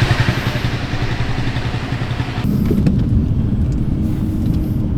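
A road vehicle's engine and road noise while driving: a loud rumble with a fast low pulsing and hiss. About halfway through it changes abruptly to a duller, lower rumble.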